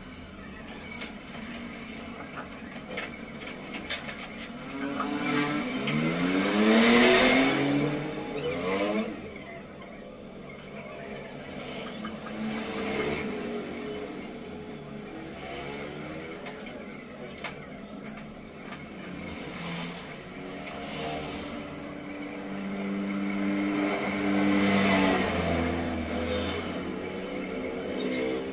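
Motor vehicles passing on the road: one accelerates by with a rising engine note, loudest about seven seconds in, and a second passes with a steadier engine note later on.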